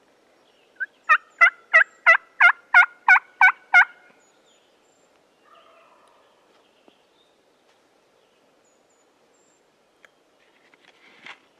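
A run of about nine turkey hen yelps, evenly spaced about three a second after a short lead-in note, then stopping.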